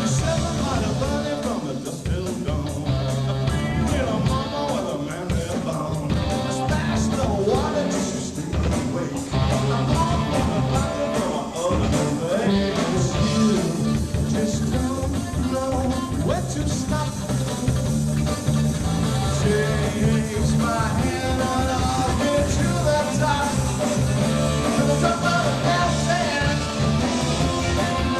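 A rock band playing a song live, with a singer over the band.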